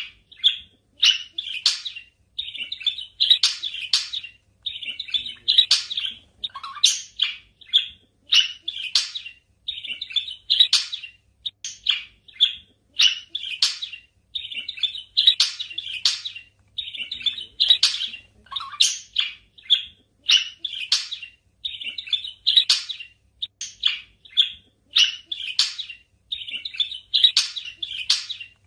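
Budgerigars chirping: rapid short high chirps in clusters that repeat about once a second, without a break.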